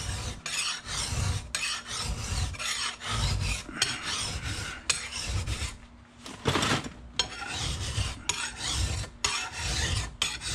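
Flat bastard file rasping across the flat top of a steel Windsor sprocket-nose chainsaw guide bar clamped in a vise, about one stroke a second, taking off the sharp edge and burrs. There is a short break about six seconds in.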